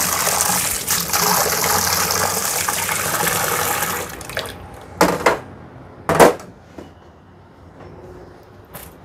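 Kitchen tap running steadily into the sink, shut off about four seconds in, then a few short knocks, the loudest about six seconds in.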